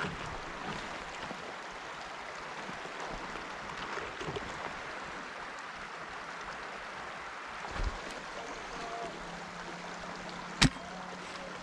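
Steady rush of flowing river water, with one sharp click near the end.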